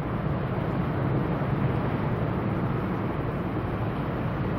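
Steady low drone of a passing general cargo ship's diesel engine, mixed with wind on the microphone and the wash of water.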